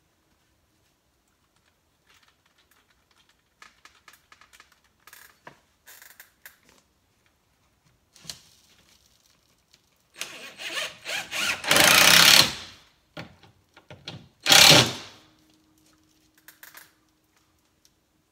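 Cordless drill driving screws up through a drywall ceiling panel into the joists. Faint handling clicks come first, then a loud run of about three seconds just past the middle and a second, shorter run about a second later.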